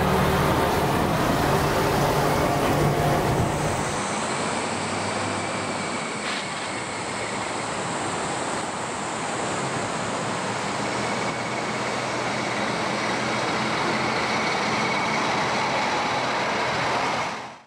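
Diesel railcar engine running steadily at a station for the first few seconds. After a cut comes the steady running noise of a diesel train crossing a steel arch bridge, which fades out near the end.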